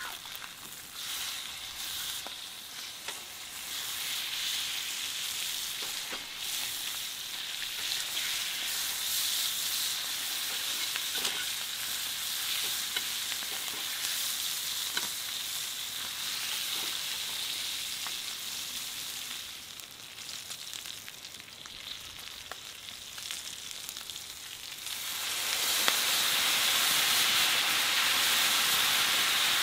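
Chicken pieces sizzling as they sear in a hot cast-iron skillet, with occasional clicks of a fork turning them against the pan. Near the end the sizzle turns suddenly louder into a steamy hiss as the beer for braising hits the hot pan.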